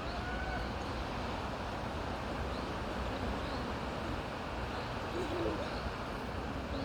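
Steady wind rushing through forest trees, with a low rumble, and a few faint short bird chirps now and then.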